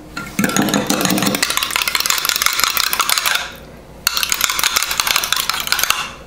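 A metal fork beating eggs in a glass Pyrex measuring cup: rapid clicking of the tines against the glass, in two runs with a short break about halfway through.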